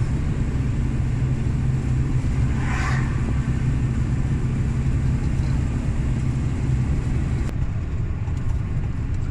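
Volvo FH460 truck's inline-six diesel engine running steadily at cruising speed, heard from inside the cab as a continuous low drone with tyre and road noise.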